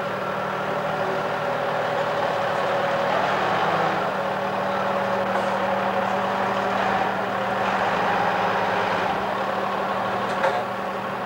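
Engine of a large boat-handling forklift running steadily at idle, with a short knock near the end.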